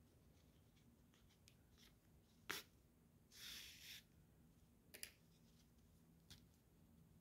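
Near silence with faint handling sounds of hand-sewing crochet: a few soft clicks and a brief rustle about halfway through as yarn is drawn through the crocheted piece with a needle.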